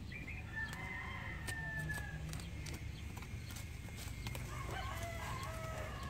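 A rooster crowing twice, each a long drawn-out call. Short knocks and scrapes come from a short-handled hoe chopping into the soil.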